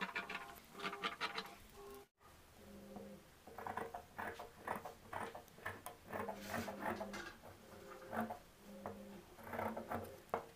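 Large tailoring scissors snipping through cotton blouse fabric, many short crunching cuts in quick runs, with a brief dropout about two seconds in.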